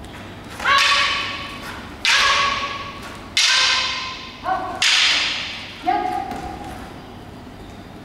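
Wooden practice swords clashing six times, each sharp clack ringing briefly and fading, the fourth and fifth strikes coming close together.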